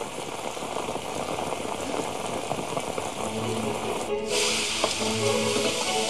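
Steady rain, then about four seconds in a sudden cut to loud sizzling of food frying over a high flame. Background music with long held notes comes in shortly before the cut.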